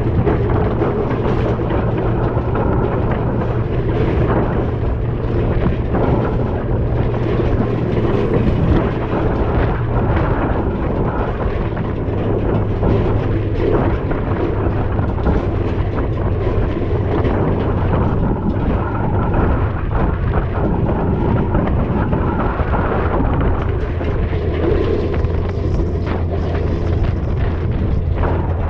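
Large farm tractor's diesel engine running steadily while towing an air drill and cart, its low drone dropping slightly in pitch about a third of the way through. Wind rumbles over the microphone.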